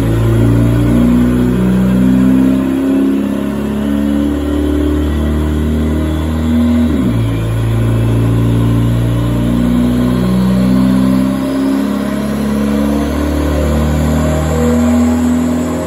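Ford Escort's engine running on a chassis dynamometer, its pitch moving up and down in steps rather than one steady climb, with a short dip about seven seconds in.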